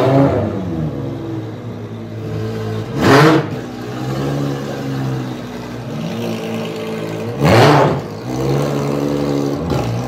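Ferrari race car's engine idling, blipped to a sharp rev three times: near the start, about three seconds in and about seven and a half seconds in.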